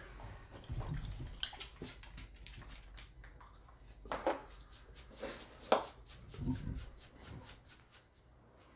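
A pet dog making a few short sounds, the loudest about six seconds in, over faint clicking and handling of a hot sauce bottle being opened and poured.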